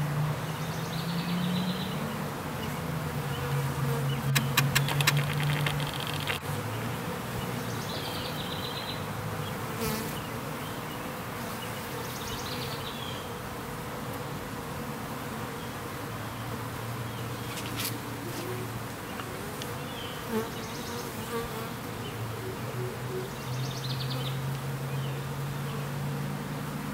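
Honeybees buzzing close by at a queen cage, a low droning hum that fades and swells as bees fly in and out. A short run of sharp clicks comes about four seconds in.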